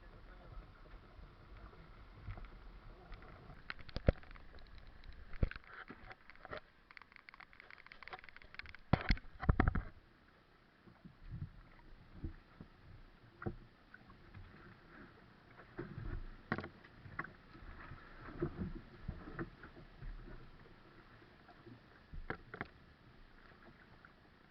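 Water sloshing and slapping around a small fishing boat in rough sea, with irregular knocks and thumps on board. The loudest knocks come about four seconds in and in a quick cluster around nine to ten seconds in.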